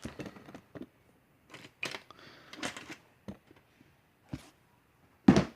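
Handling noise close to the microphone: scattered clicks, taps and light rustles as objects on the desk and the camera are moved, with one louder knock near the end.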